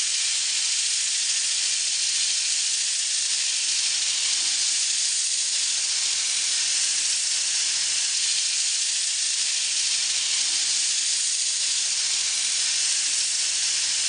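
Abrasive in a homemade sanding jig held against a wooden cylinder spinning on a lathe, giving a steady, even sanding hiss.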